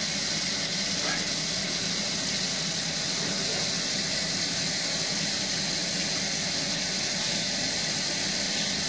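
Kitchen faucet running a steady stream of tap water into a stainless steel sink, left running to flush the water line.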